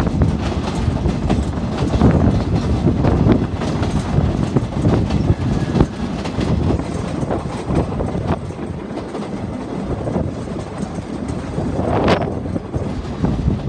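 Passenger train running on the rails: a steady rumble with irregular clacks of the wheels over the track, and a louder clank near the end.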